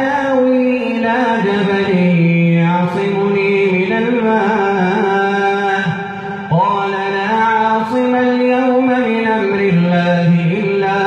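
A man chanting Quran recitation into a microphone, in long, ornamented, melodic phrases with held notes. One phrase ends and a new one begins about six and a half seconds in.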